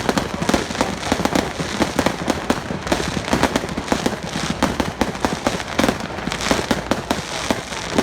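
Firecrackers going off in a rapid, continuous, irregular crackle of bangs, typical of a long string of firecrackers set off as a salute.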